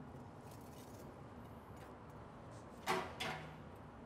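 Whole spatchcocked chickens being flipped and set back down on an offset smoker's metal cooking grate: faint handling noise, then two quick knocks close together about three seconds in.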